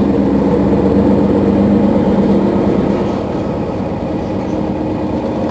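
Mercedes-Benz Citaro facelift city bus's engine idling, a steady low hum that eases off slightly about three seconds in.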